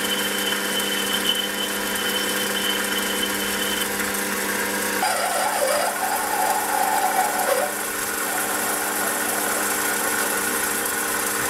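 Small bench metal lathe running with a steady motor hum while turning a small brass part. A hand file rubs the spinning brass at first; about five seconds in, a cutting tool takes a cut and a rougher scraping joins the hum.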